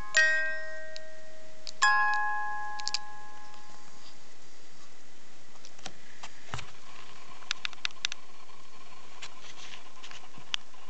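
Hand-cranked music box movement: the pinned cylinder plucks the steel comb for two last notes, the second a chord that rings on and fades over about two seconds. After that come only a few faint clicks and a soft knock.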